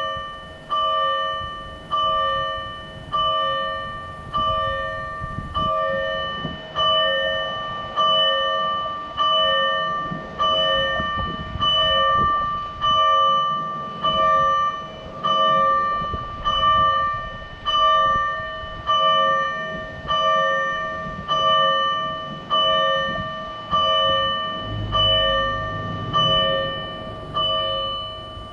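Fire engine warning bell from an MK10 TWS-5102V siren amplifier, sounding the slow warning-bell pattern: even bell strikes, about four every three seconds, each ringing with several clear tones and fading before the next.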